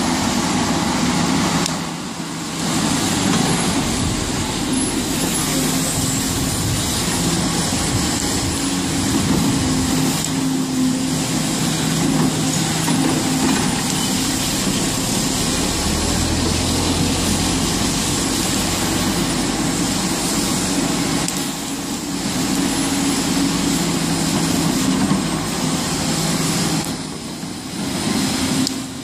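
Hidromek HMK300LC-3 crawler excavator's diesel engine running under working load, its note shifting up and down, with brief lulls about two seconds in and again near the end.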